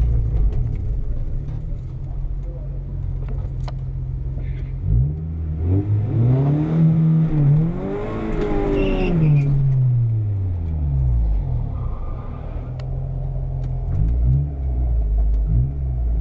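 A car engine idling, then revved up and back down in a slow swell about five seconds in, settling back to idle with a couple of short blips near the end.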